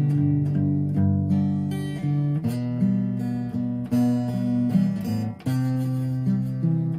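Acoustic guitar playing slow, calm instrumental music, notes and chords ringing out one after another, with a brief pause about five seconds in.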